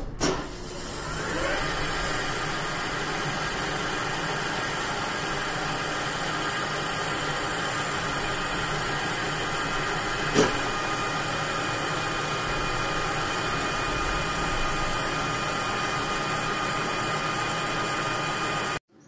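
Engine lathe switched on with a click, spinning up over about two seconds, then running steadily with a whine from the headstock, its three-jaw chuck turning a square bar held in slotted soft jaws. A single sharp knock about ten seconds in.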